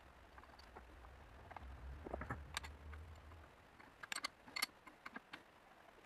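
Light clicks and clinks of a metal live-centre fixture being set and adjusted on a cast-iron drill press table, with a wrench being handled. There is a faint low rumble at first, then a few sharper ticks about four seconds in.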